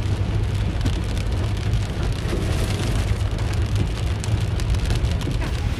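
Inside a car moving along a hail-strewn road: a steady low rumble of the car, with a dense patter of many small ticks over it.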